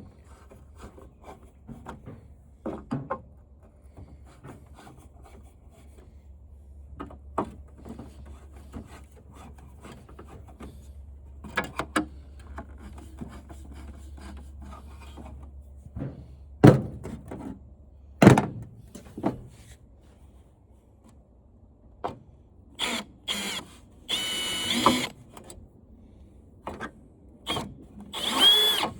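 Scattered clicks and knocks from handling the TV's parts, then near the end a drill used as a screw gun running in several short bursts, each a second or less, to back out screws.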